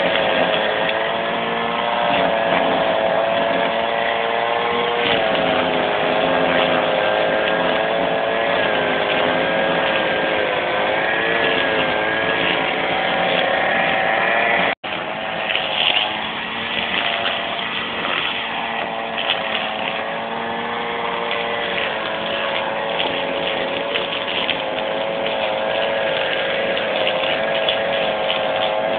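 Petrol brush cutter's small engine running steadily as it cuts grass and undergrowth, its note rising and dipping as the cutting head works through the growth. The sound cuts out for an instant about halfway.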